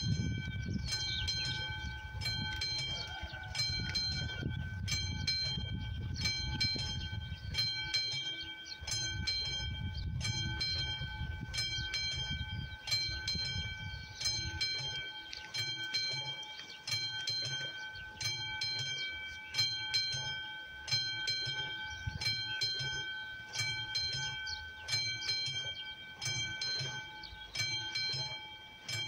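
Classic level-crossing warning bell ringing continuously in steady repeated strokes, sounding together with the AŽD 71 flashing lights to warn that a train is approaching. A low rumble runs under it for about the first ten seconds.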